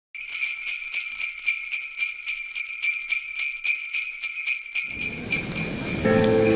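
Sleigh bells jingling in a steady rhythm, about four shakes a second. Near the end, music with lower notes comes in under them.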